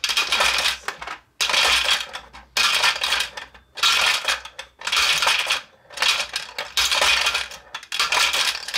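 Glass marbles clattering and rattling around inside the plastic hopper of a vintage Marx Cat's Eye marble game, in bursts of about a second, one after another with short breaks between.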